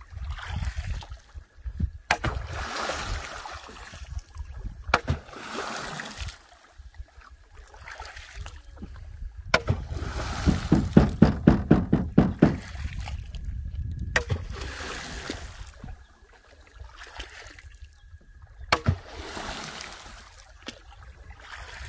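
Water splashing and sloshing beside a small fishing boat on a lake, where a cast net has just gone out for tilapia. Sharp knocks come about every four to five seconds, each followed by a wash of splashing, with a stretch of quick, rhythmic splashes in the middle.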